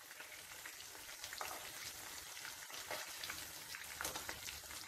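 Anchovies frying in hot coconut oil: a faint, steady sizzle with scattered small crackles.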